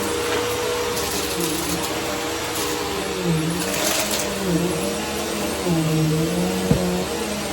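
Vacuum cleaner running, its motor pitch dipping and recovering several times as it is pushed over the floor, with a few brief hissy stretches and a sharp knock near the end.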